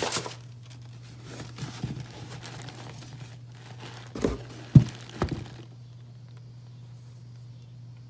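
Packing paper and cardboard crinkling as a leather cowboy boot is handled and lifted from its shoe box, with three quick knocks about four to five seconds in, the middle one loudest. After that only a low steady hum remains.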